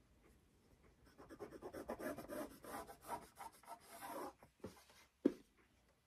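Pencil scratching along a ruler as a diagonal line is drawn corner to corner on a small fabric square, for about three seconds. Then two short knocks, the second sharper and louder.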